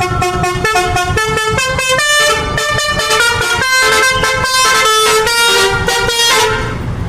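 Indonesian tour bus's telolet horn, a set of multi-tone air horns, playing a quick melody of short changing notes, then stopping about six and a half seconds in.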